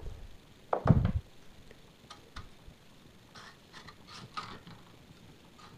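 Metal handling on a bench-mounted sheet metal bender while its clamp nuts are loosened: one heavy knock about a second in, then scattered light clicks and short rubbing sounds.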